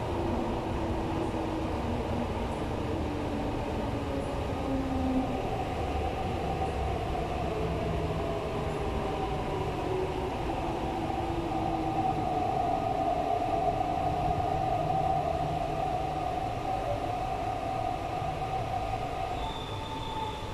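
Cabin of an MTR East Rail line R-Train electric multiple unit running, heard from inside: a steady rumble of wheels on the track with the whine of the traction motors. A lower whine slides down over the first few seconds and a higher one holds through the middle, with a brief high-pitched squeal near the end.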